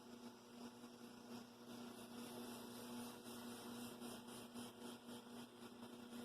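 Faint, steady electrical hum over a low hiss, close to silence.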